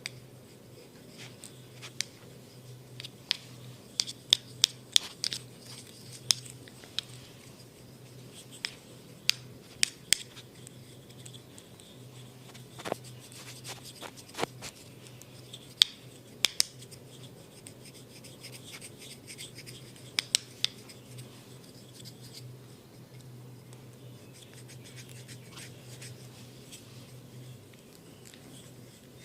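Hands massaging a head and face, with skin and hair rubbing and many irregular sharp clicks and snaps, over a steady low hum.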